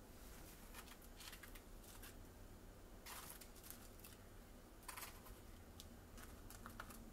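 Near silence with a few faint, short rustles and light clicks as lettuce and crisp fried mackerel pieces are set on a plate with hands and wooden chopsticks.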